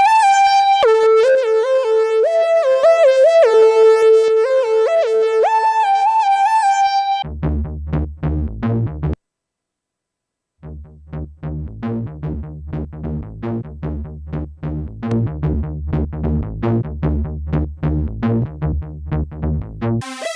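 Electronic synthesizer music: a single-note lead melody for about seven seconds, then a rhythmic bass sequence of short plucked notes. The bass cuts out for about a second and a half partway through, then resumes.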